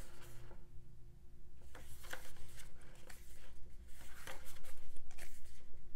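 Pages of a small perfect-bound booklet being turned by hand: soft paper rustles and a few light flicks.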